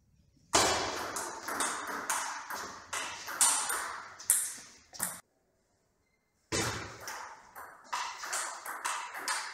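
Table tennis rally: the ball clicking off bats and table in quick succession, each hit echoing briefly in a large hall. The hits stop abruptly about five seconds in and start again after a second or so of dead silence.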